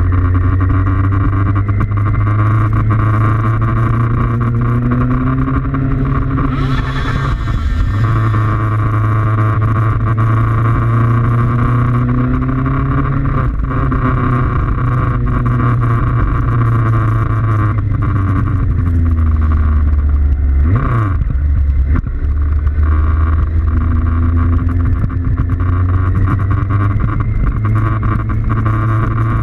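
Motorcycle engine running at road speed close to the microphone, its pitch climbing and dropping several times as the bike speeds up, changes gear and slows, over a steady rush of wind noise.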